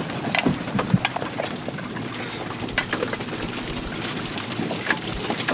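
Water splashing and dripping aboard a small fishing boat as a net is worked over a metal net hauler, with many scattered short knocks and clicks.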